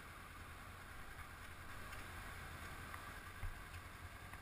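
Honda CB500X motorcycle's parallel-twin engine running at low revs as the bike rolls slowly, a steady low hum under a faint even hiss.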